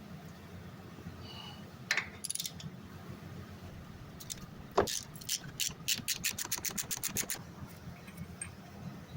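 Metal tools clink, a sharp knock sounds, then a hand ratchet clicks rapidly and evenly, about seven clicks a second for two seconds, as it turns a suspension bolt.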